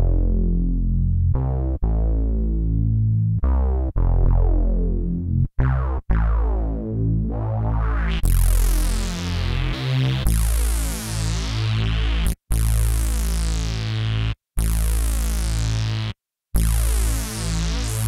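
Roland JD-800 software synthesizer (Roland Cloud) playing its "Wet Bass" preset: a low synth bass line of repeated notes in short phrases with brief breaks. The tone turns much brighter about eight seconds in, with swirling highs over the bass.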